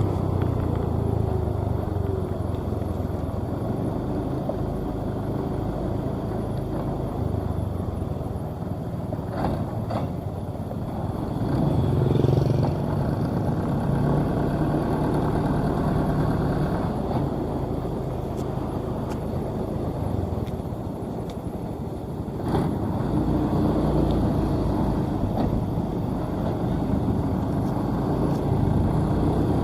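Combine harvester engine running steadily as the machine travels, its pitch stepping up about twelve seconds in and again about two-thirds of the way through.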